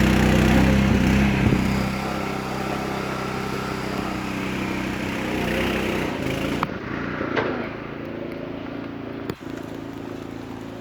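An engine running steadily, loudest for the first couple of seconds and then a little quieter.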